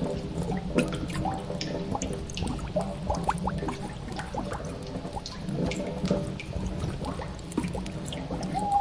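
Cave ambience of water dripping into pools: many irregular drips over a low steady drone. A drawn-out tone begins right at the end.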